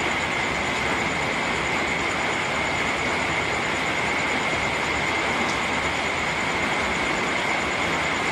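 Steady, even rain noise, with a steady high-pitched tone running through it.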